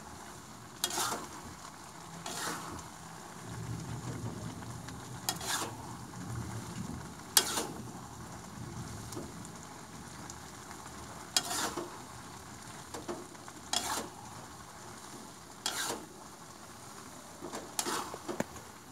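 Instant noodles sizzling in a wok over a gas burner, with a spatula scraping and knocking against the wok every two seconds or so as they are stir-fried.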